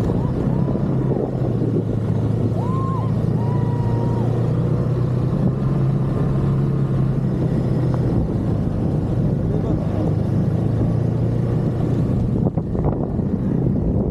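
Snowmobile engine running with a steady drone. A little before the end the engine note drops away and wind buffets the microphone.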